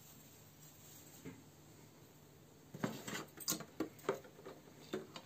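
Glass Christmas ball ornament being handled: a quiet start, then about halfway in an irregular run of light clicks and taps as the ball and its hanger are fiddled with.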